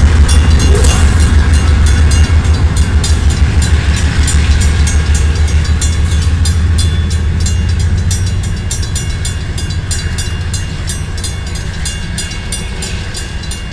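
Two Canadian Pacific GE AC4400CW diesel locomotives running light, their low engine rumble fading as they pull away. A grade-crossing bell rings steadily with rapid, evenly spaced dings throughout.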